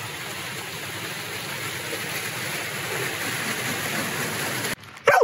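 Small forest stream rushing and splashing down a rocky cascade, a steady full rush of water that cuts off suddenly near the end.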